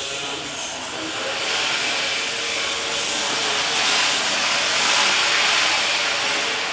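Startrite H225W horizontal band saw running, making a steady hissing rush that swells slightly in the middle.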